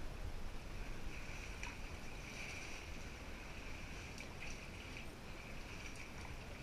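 Quiet water sounds of an inflatable canoe being paddled: faint paddle dips and water trickling against the hull, with a few light ticks, over a steady high-pitched background hum.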